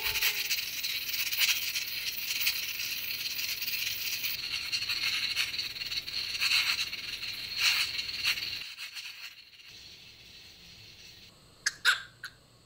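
Water boiling, a steady hiss with crackly bubbling, which fades out about eight or nine seconds in. Near the end a small Pomeranian gives two short, high yips.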